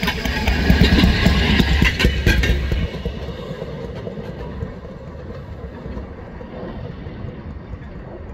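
Railroad track motorcar (speeder) towing a small trailer passing close by: its engine running with a low rumble and dense clicking from the wheels on the rails, falling off sharply about three seconds in as it moves away, then a fainter steady rumble.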